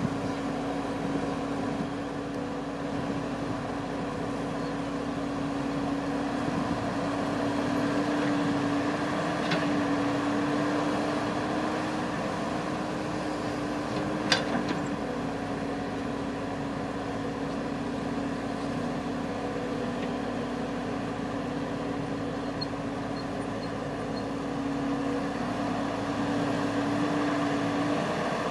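Engine of a Kubota rice-harvesting machine running steadily with a constant hum. A single sharp click about halfway through.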